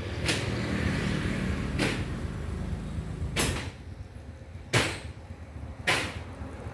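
Engine of a tracked rotary tiller running steadily, dropping to a quieter level about halfway through. Sharp knocks repeat roughly every second and a half over it.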